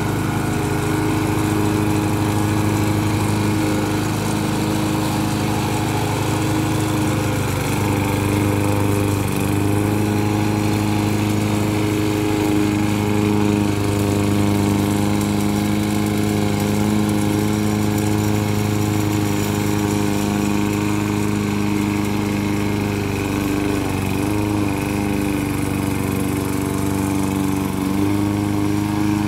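Engine of a homemade remote-controlled lawn mower running steadily as it drives and mows across the grass, its pitch dipping briefly now and then.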